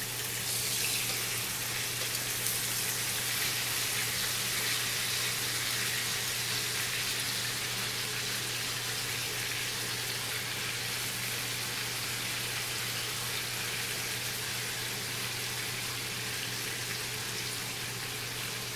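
Chicken leg pieces shallow-frying in about half an inch of hot oil in a pan: a steady hissing sizzle that swells a little about a second in as a piece is turned, over a faint steady low hum.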